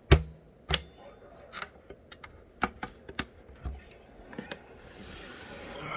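Banging from hands handling parts inside a mini-ITX computer case: irregular sharp clicks and knocks, a dozen or so, the loudest just after the start.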